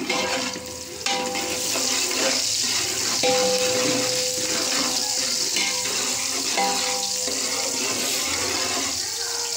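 Sliced onions sizzling steadily in hot oil in a large metal pot, stirred with a metal spoon that scrapes the bottom of the pot. The onions are in the early stage of frying to brown them.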